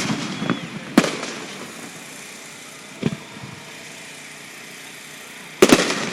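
Fireworks display: aerial shells bursting with loud bangs about a second in and near the end, and a smaller one around three seconds in, each bang trailing off over a second or so.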